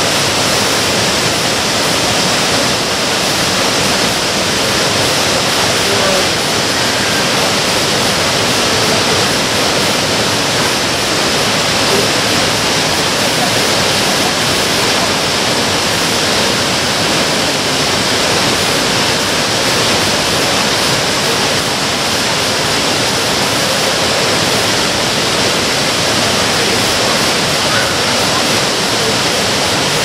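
Minoo Falls, a tall waterfall plunging into its pool, making a steady, loud rush of falling water.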